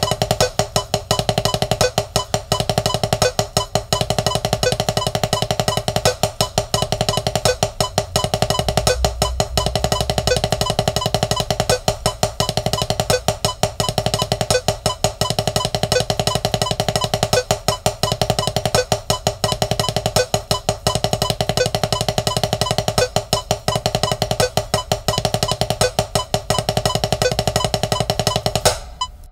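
Drumsticks playing fast, even strokes on a RealFeel rubber practice pad, with regularly spaced accented strokes, over a backing track with a steady beat. The strokes and the music stop together near the end.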